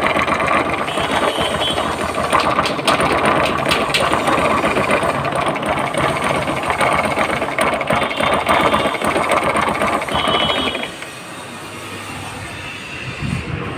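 Bajaj Pulsar 135 engine running with a loud, harsh mechanical clatter and grinding from under the magneto cover: the starter bendix has worked loose, three of its nuts undone, and is rubbing against the magneto pinion. The clatter drops away about eleven seconds in, leaving a quieter sound.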